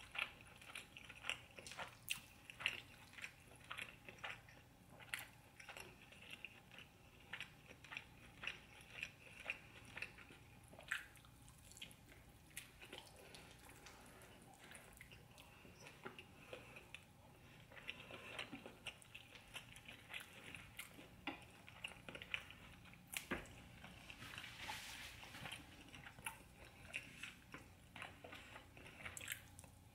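A person chewing and biting tender stewed oxtail: a long, irregular run of short, soft mouth clicks, about two a second.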